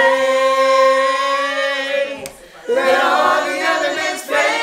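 A group of men and women singing a worship song together, holding one long note for about two seconds, then breaking off briefly before singing another phrase.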